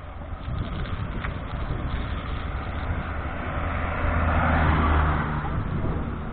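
A car's engine and road noise, growing louder to a peak about four to five seconds in and then easing off.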